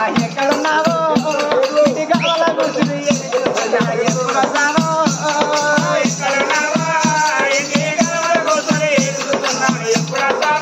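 Telugu Oggu Katha folk music: a barrel drum keeping a fast, even beat with a jingling rattle over it, and a voice singing the melody.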